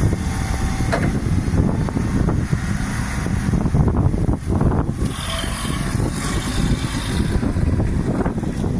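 Toyota 7FD15 forklift's diesel engine running steadily, with wind noise on the microphone.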